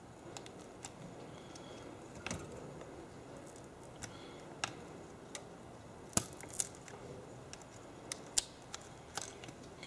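Scattered sharp clicks and small cracks, about eight of them, as the cracked iPad 2 digitizer glass is pried up from its adhesive along the edge, over a faint steady hiss.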